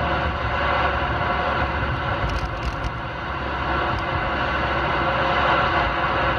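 Steady noise inside a moving car, with road and tyre noise mixed with the hiss and hum of a CB radio left on with no one transmitting.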